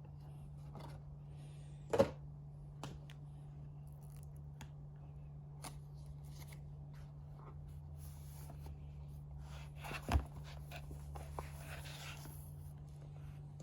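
Watch box and packaging being handled during an unboxing: soft rustling with scattered clicks, a sharp knock about two seconds in and another about ten seconds in, over a steady low hum.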